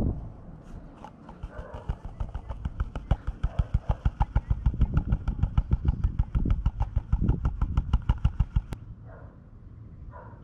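A green plastic gold pan of water, sand and gravel being shaken hard and fast, the load sloshing and rattling in an even rhythm of about six strokes a second. The shaking stops suddenly near the end.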